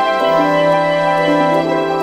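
Background music of slow, sustained notes, with the bass note changing shortly after the start.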